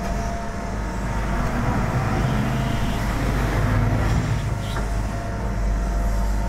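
Diesel engine of a Hitachi ZAXIS 125W wheeled excavator running, swelling for a couple of seconds in the middle as the machine works.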